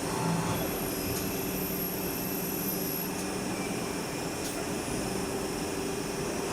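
Gildemeister MSL 42 CNC lathe running through a machining cycle: a steady mechanical hum with a high thin whine for the first few seconds and a few faint clicks.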